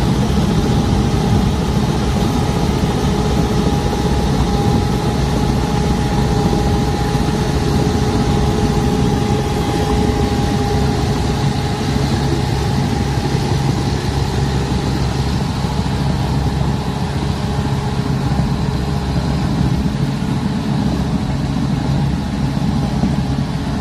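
Truxor amphibious tool carrier's engine running steadily, with a steady whine over it, as the machine's tracks churn through shallow river water.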